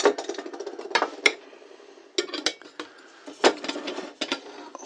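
Lightweight aluminium camping cookware being handled and set down on a table, giving a string of light metal clinks and knocks as a frying pan and kettle are moved.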